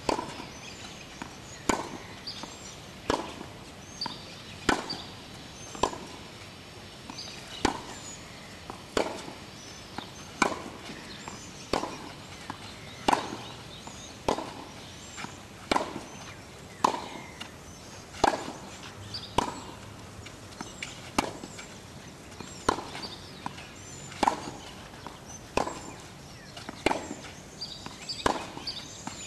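Tennis ball hit back and forth in a baseline rally on a clay court: sharp racket strikes about every one and a half seconds, with softer ball bounces between them.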